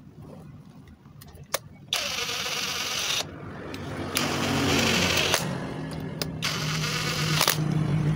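Brushless cordless impact wrench hammering the bolts of a truck's differential ring-gear carrier, in three bursts of about a second each.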